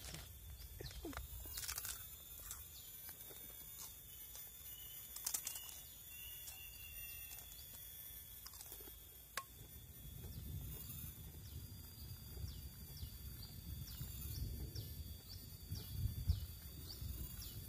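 Quiet outdoor ambience: a steady high-pitched drone, a few sharp clicks, and a low rumble through the second half.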